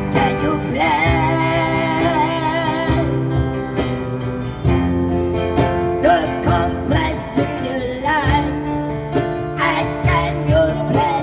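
A singing voice holding long, wavering notes over strummed acoustic guitar: a slow ballad being sung.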